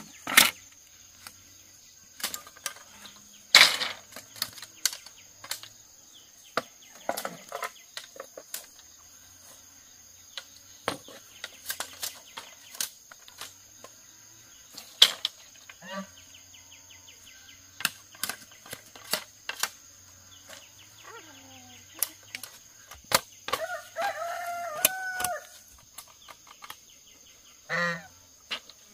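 Bamboo being cut with a billhook and handled: a run of sharp, irregular knocks and hollow clacks as the blade strikes the culm and poles knock together. A chicken clucks about 24 seconds in and again briefly near the end.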